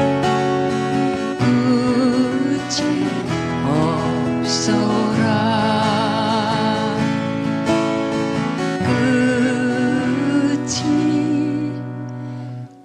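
Live acoustic folk music: acoustic guitar accompaniment under a held melody line that wavers with vibrato, with the song winding down and the sound dropping away near the end.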